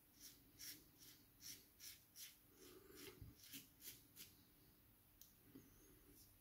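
Open-comb safety razor scraping through lathered stubble in short, quick strokes, about two or three a second, faint; the strokes stop a little past halfway, leaving one small click.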